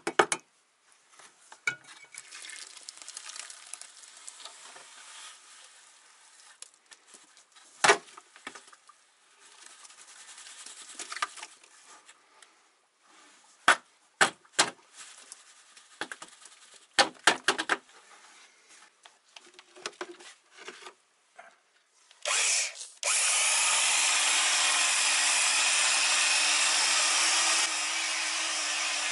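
A trowel scrapes and knocks in a metal bucket as water and dry cement mix are stirred, with a few sharp knocks as a plastic bucket is emptied into it. About 23 seconds in, an electric drill with a paddle mixer starts and runs steadily, its pitch rising slightly near the end, as it mixes the mortar.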